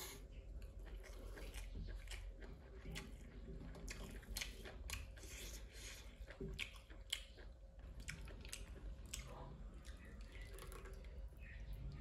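Close-miked chewing and wet mouth sounds of a person eating a meal by hand, with many small irregular smacks and clicks.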